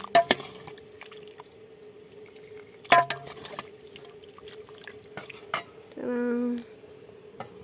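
Three sharp clinks of utensils or dishes, a short steady hum about six seconds in, and a faint steady insect drone underneath.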